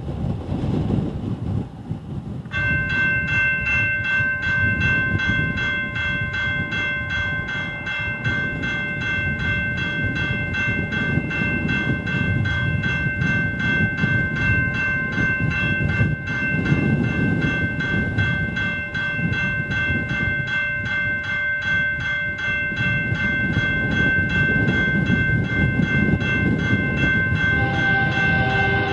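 General Signals Type 2 electronic railroad crossing bell starts about two and a half seconds in and rings steadily with rapid repeated strikes while the gates lower, over a low rumble of wind. Near the end the horn of the approaching train's lead locomotive, a Nathan K5HL, begins to sound.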